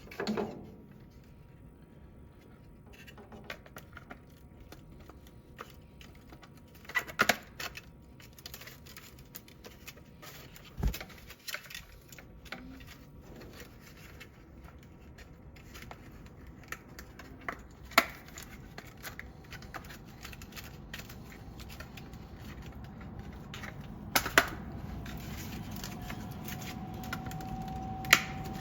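Scattered clicks and knocks of plastic parts as a new water pad and its frame are fitted back into a whole-home humidifier, about seven sharp ones spread out with quieter handling between. A steady low rumble gets louder near the end.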